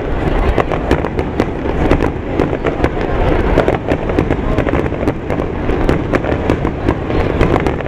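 Finale barrage of aerial firework shells: many bursts follow one another without a break, sharp cracks and crackles layered over a continuous low rumble of booms.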